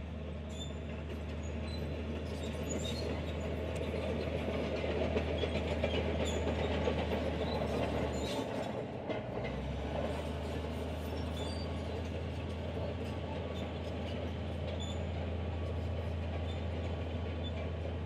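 Komatsu crawler bulldozer working, its diesel engine running steadily under a clatter of tracks. The engine note dips briefly about eight and a half seconds in and comes back up a second later.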